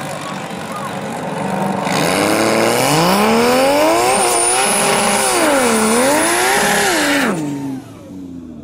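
Toyota Mark II drag car doing a burnout on water-wetted tyres to warm them. Its JZ-family straight-six, a 2JZ block with 1JZ parts, revs up about two seconds in and wavers up and down at high revs over the hiss and squeal of the spinning tyres, then drops back near the end.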